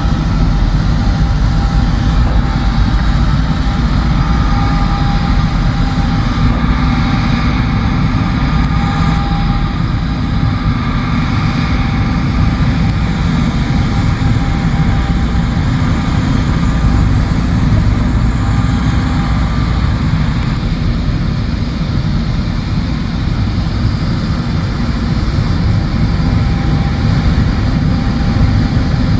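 John Deere combine harvester running steadily while harvesting soybeans: a loud, continuous heavy engine drone with a faint wavering whine above it.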